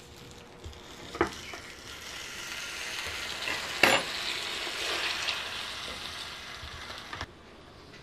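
Fried rice sizzling on the hot plates of an electric waffle maker. The sizzle grows louder from about a second in, and a sharp clack about four seconds in comes as the lid is forced shut on it. The sizzling stops abruptly near the end.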